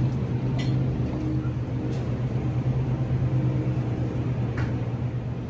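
Steady low hum of supermarket background noise, with a few faint clicks.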